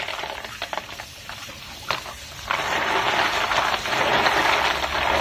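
Tap water running into a bowl of live land snails while hands swish and rub them, with a few sharp clicks of shell against shell; the water runs softer at first and pours louder about two and a half seconds in. The snails are being rinsed of the slime drawn out by salting.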